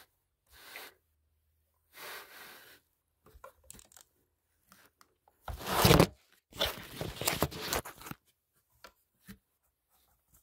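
Rustling and rubbing handling noise from a phone being moved about against fabric: a few short rustles, then two louder stretches of rubbing a little past halfway through.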